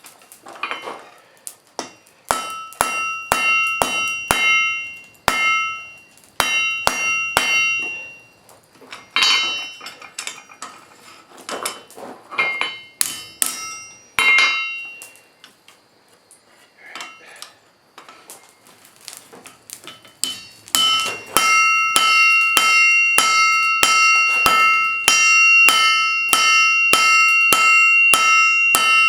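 Blacksmith's hand hammer striking steel on an anvil, each blow leaving a bright metallic ring. The blows come in bursts of a few seconds with short pauses, then settle into a steady run of about two to three blows a second for the last third.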